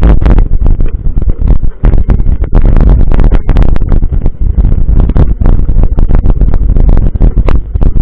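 Wind buffeting the microphone on a moving mountain bike: a loud, churning low rumble broken by frequent sharp knocks and rattles from the bike over rough ground.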